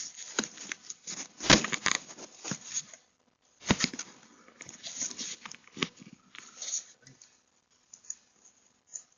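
Irregular scraping, rustling and knocking of a hand fiddling with a doorbell camera right at its microphone, loudest about a second and a half in, thinning to a few scattered ticks near the end.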